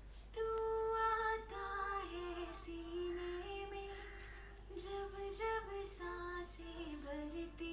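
Solo female lead vocal singing a slow Hindi song phrase unaccompanied, a dry, uncompressed take played back from the session without the compressor. The held, gliding notes begin about half a second in.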